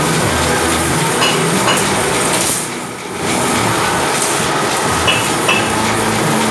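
Wire straightening machine running with a steady mechanical rattle and a few sharp clicks. It dips briefly about halfway through, then picks up again.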